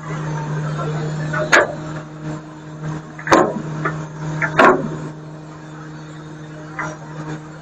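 Garbage truck engine running with a steady hum, broken by three sharp bangs a second or two apart in the first five seconds.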